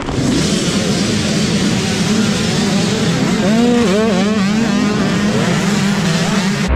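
A pack of youth dirt bikes launching together off a race start, many small engines revving hard at once. One engine's revs rise and fall clearly above the rest about midway.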